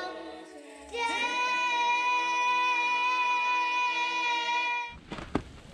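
Two young girls singing a children's song together, holding one long, steady note for about four seconds. Near the end the singing cuts off and short scuffing noises follow.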